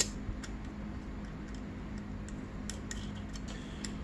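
Scattered light metallic clicks and taps as cylinder base nuts and washers are fitted by hand onto the studs, over a steady low hum.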